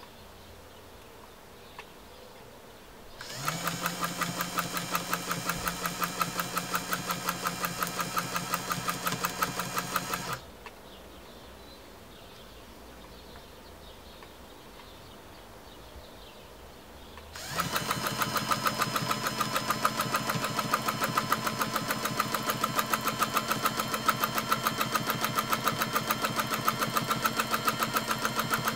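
Bernina 117-K electric sewing machine stitching: motor hum under a rapid, even clatter of needle strokes. It starts about three seconds in and stops after about seven seconds, then starts again after a pause and keeps running to the end, a little higher in pitch the second time.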